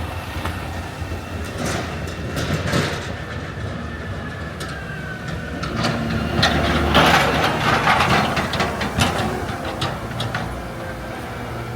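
Heavy snow-clearing machine (snow plow) working, its engine droning steadily under scattered clanks and scrapes. It grows louder and noisier about six to nine seconds in.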